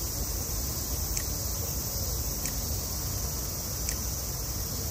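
Steady high drone of summer cicadas over a low background rumble. Three faint high whistles fall in pitch, about a second and a half apart.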